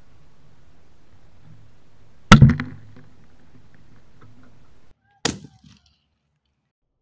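A plastic bottle filled with HHO (hydrogen–oxygen) gas exploding with one sharp, loud bang about two seconds in, ringing briefly before it fades. A second, quieter crack follows about three seconds later.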